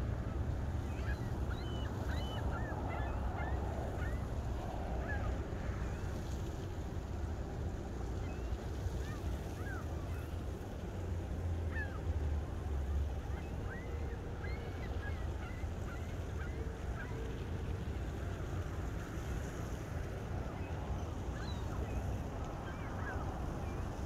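A large, distant flock of waterbirds calling: many short, overlapping cries. A steady low wind rumble on the microphone runs underneath.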